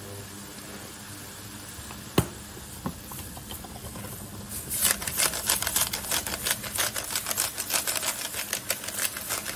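A single sharp knock about two seconds in, then from about halfway a fast, even run of ratcheting clicks, about six a second, from a hand-twisted spice grinder being turned over the pan to season it.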